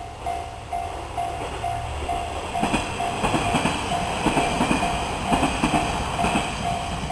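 Japanese level crossing's warning bell ringing about twice a second. From about two and a half seconds in, a train passes over the crossing, its wheels clattering over the rail joints and drowning the bell partly.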